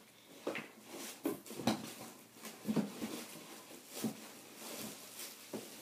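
Irregular rustling and crinkling of plastic wrapping, with light knocks against the cardboard box, as a hoverboard is lifted out.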